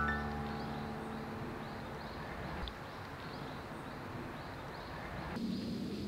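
Outdoor ambience: a steady hiss with faint high chirps repeating about three times a second. The last notes of a guitar tune ring out and fade during the first second or two.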